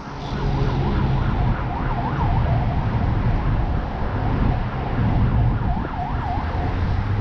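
Emergency vehicle siren wailing rapidly up and down in two spells, near the start and again about five seconds in, over a steady rumble of street traffic.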